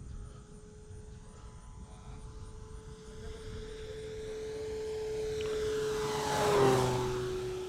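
Electric RC model Cessna 152's brushless motor and propeller whining in a flyby: the steady tone grows louder, peaks about six and a half seconds in with a slight drop in pitch as the plane passes, then fades.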